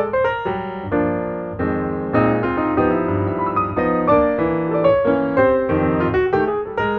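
Background piano music, a steady run of notes without singing.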